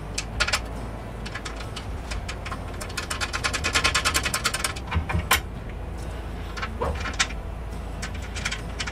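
Hands handling and fitting a metal trim strip along the top of a boat's engine-box panel: scattered light clicks and knocks, a quick rattling run of clicks about three seconds in, and a sharper knock about a second after that.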